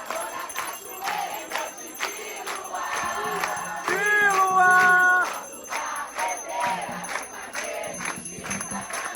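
Afro-Brazilian ritual music for Xangô between sung verses: a steady beat of percussion strokes with jingling metal, and voices singing now and then.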